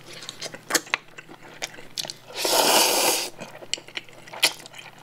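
Close-up eating sounds: wet chewing and small mouth clicks, with a loud slurp of cold jjolmyeon noodles being sucked in about two and a half seconds in.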